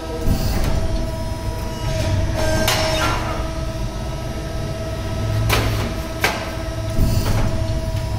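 CNC press brake running: a steady machine hum with a constant tone, broken four times by a short rushing surge as the machine cycles through bends of a sheet-metal tray.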